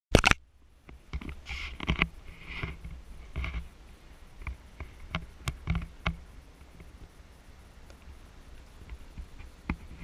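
Handling noise from a camera carried on foot: a sharp click right at the start, then irregular knocks and crunches of steps and grip on a gravelly path, about two a second at first and sparser after about six seconds, over a low wind rumble on the microphone.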